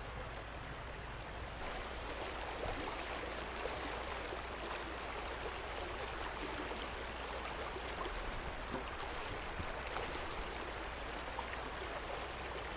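Shallow stream rushing steadily over rocks and gravel.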